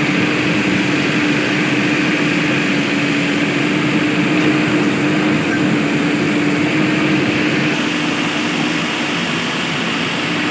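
Heavy diesel machinery running steadily, an engine hum holding one pitch under a broad mechanical noise that eases slightly near the end.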